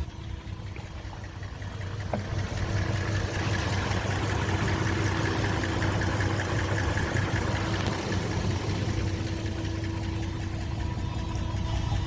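Dodge Ram 1500's 5.9-litre Magnum V8 running steadily at idle with freshly installed cylinder heads and head gaskets. There is a small click about two seconds in, and the engine grows a little louder after it.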